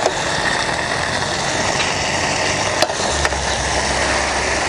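Portable gas stove's burner running under a pot of simmering curry: a steady rushing hiss. Two light clicks come about three seconds in, and a low hum joins just after.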